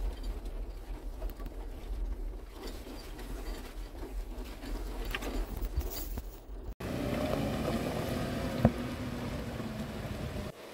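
A Jeep's low in-cabin rumble with scattered small clicks as it drives slowly along a rough gravel track. After an abrupt cut comes a steadier, fuller engine sound as a Jeep climbs a steep dirt slope, with one sharp click near the end.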